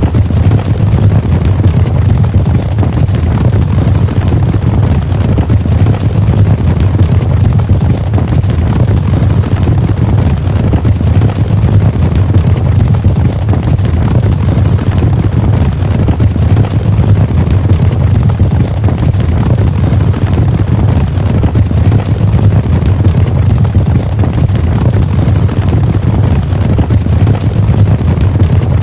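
Cavalry charge: many horses galloping together, their hoofbeats merging into a continuous heavy rumble.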